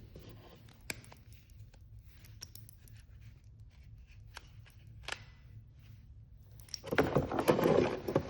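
Scattered light clicks and taps of small objects being handled, then a louder stretch of rustling and clatter near the end.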